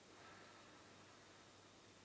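Near silence: room tone with a faint hiss.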